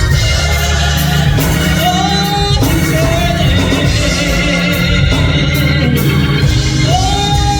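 Gospel praise music. A singer holds long notes over organ, bass and drums.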